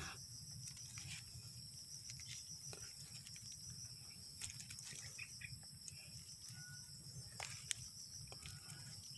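Crickets or other insects keeping up a steady high-pitched drone, with a few faint scattered clicks and rustles.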